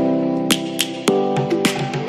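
Background music: held chords over a steady beat of sharp percussive clicks, about three a second.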